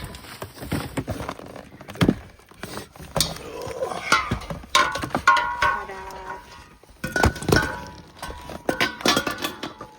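Irregular knocks and metallic clinks, some briefly ringing, from a propane tank and its threaded fitting being handled and worked on.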